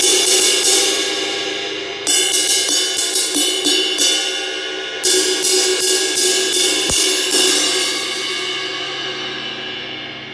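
Zildjian 20-inch K Custom Dark Ride cymbal struck with a stick in three runs of rapid strokes, each run left to ring and fade, the last fading out over the final few seconds. The cymbal is cracked on its inside, not yet repaired.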